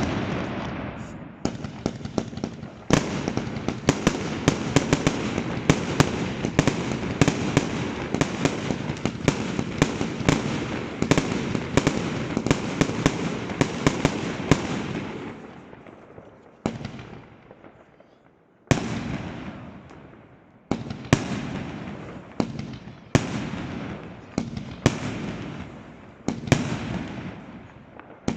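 Fireworks going off: a dense barrage of bangs over continuous crackling and rumbling, thinning after about halfway into separate loud bangs roughly a second apart, each trailing off.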